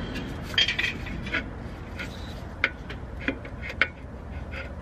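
Irregular metallic clinks and taps, about five of them, as a Ford Focus RS clutch pressure plate is shifted against the flywheel to line it up on its locating pegs.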